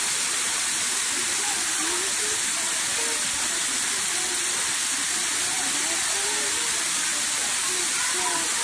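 Steady rushing of a waterfall, an even, unbroken hiss of falling water.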